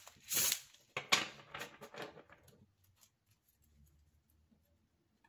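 A tarot deck being riffle-shuffled: a short whirring burst as the bridged cards cascade back together, then a run of sharp taps and clicks as the deck is squared up.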